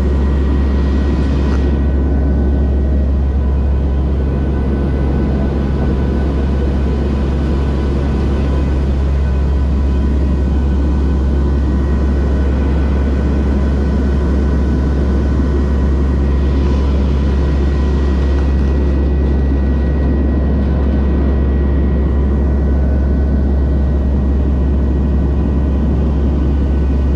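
Cabin noise of a Lockheed WP-3D Orion's four Allison T56 turboprop engines in flight, heard from inside the cabin: a loud, constant deep drone with a few steady high tones over it.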